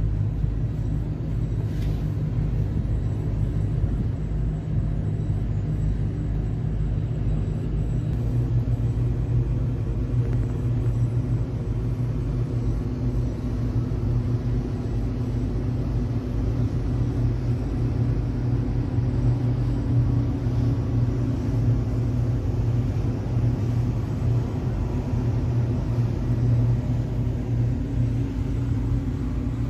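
Steady low rumble of a vehicle in motion, even throughout.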